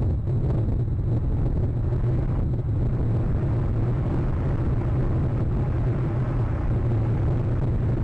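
Storm wind buffeting the nest camera's microphone: a steady, loud, low noise with no break.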